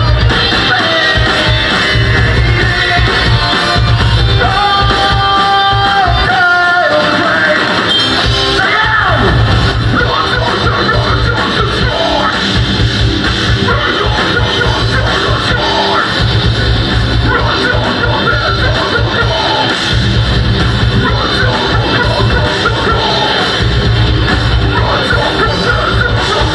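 Metalcore band playing live and loud: distorted guitars carry a held lead melody over bass and drums, the low end drops out briefly at about seven seconds, then vocals come in over the full band.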